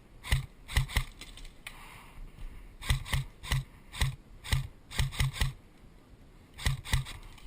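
A series of about fourteen sharp clicks, each with a short low thump, coming singly and in quick runs of two or three, with pauses of one to two seconds between the groups.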